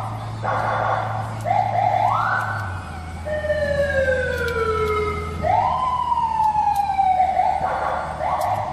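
Senken CJB100BD electronic vehicle siren sounding through its tones: three short rising whoops, then two long, slowly falling wails.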